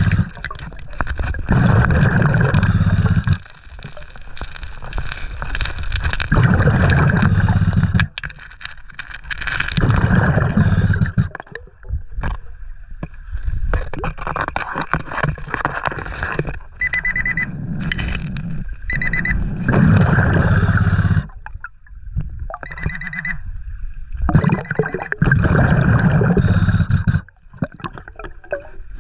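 Underwater gurgling of a scuba diver's exhaled bubbles in loud bursts every few seconds, with a handheld underwater metal detector giving a few short high beeps over the rocks past the middle.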